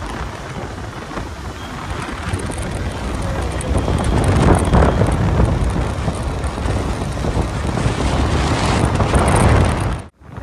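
Wind buffeting the microphone of a rider on a moving motorbike, a loud rumbling rush with road noise beneath it. It cuts out suddenly near the end.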